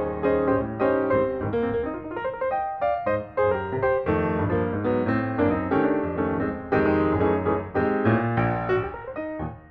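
Background piano music, a run of single notes played over a steady low accompaniment.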